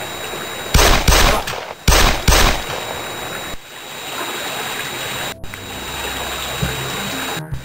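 Four gunshots in two quick pairs about a second in, the loudest sound here, over the steady trickle of a backyard fountain.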